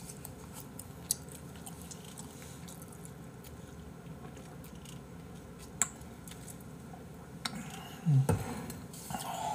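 Quiet table sounds of a person eating and drinking: a few small clicks and light handling noises, then a short, loud, low thump about eight seconds in.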